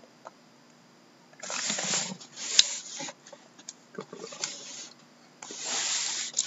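Hands rubbing and sliding over a sealed cardboard case and shifting it on a desk: several short scraping rustles of cardboard with a few light knocks, the longest scrape near the end.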